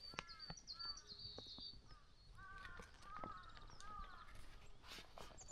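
Faint outdoor birdsong: several birds calling, with quick high chirps and trills over a series of short, lower arched calls that repeat through the whole stretch.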